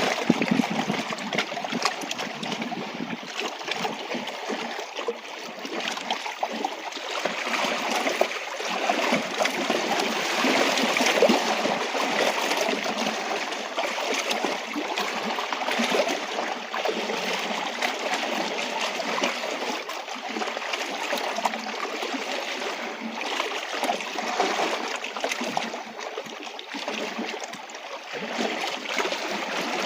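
Small waves lapping against a rocky shoreline, a continuous wash of water whose loudness swells and eases unevenly.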